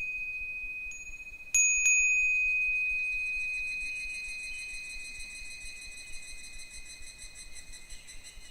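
Japanese furin wind bell ringing: a light strike about a second in, then two sharp strikes of the clapper close together. A high ring with a wavering shimmer slowly fades after them and cuts off suddenly near the end.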